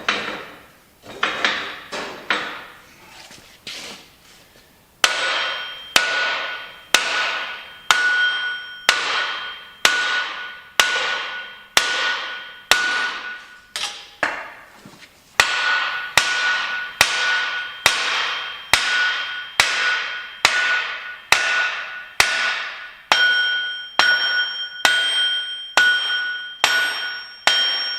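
Steel being hammered, a few light knocks and then steady, evenly spaced blows about once a second, each with a short metallic ring, driving a stump grinder's track idler into its slides where it is hanging up.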